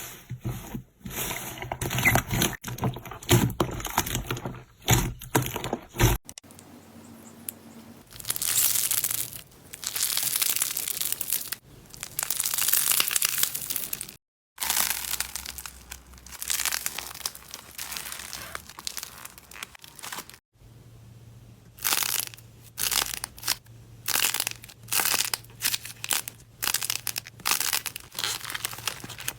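Slime being squished, pressed and pulled apart, giving crinkly, crackling and tearing sounds. It comes in several separate stretches that break off suddenly, with short quieter gaps between.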